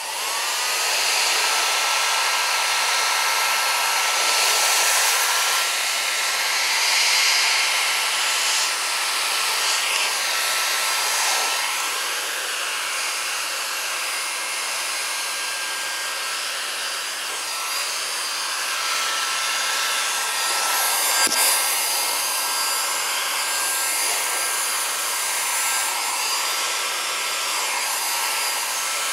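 Heat gun switched on and blowing steadily, its fan whine rising as it spins up, used to warm the scooter tyre's rubber and soften it.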